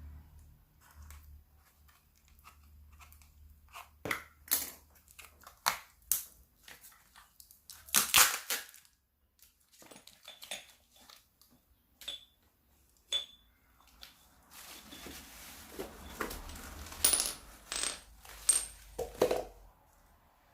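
Hand-handling noises, irregular crinkles, taps and light clinks, the kind made by plastic packaging and containers being opened and moved. The loudest bursts come about 4 s and 8 s in, and a cluster follows near the end.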